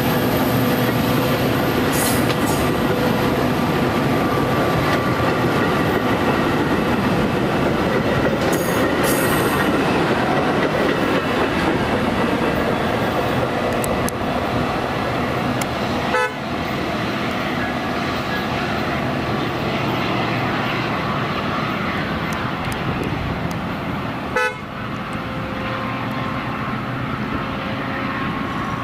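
A train passing close by, with a steady loud rumble of wheels on rail and faint steady tones over it. Two brief sharp clicks come about halfway through and again near the end.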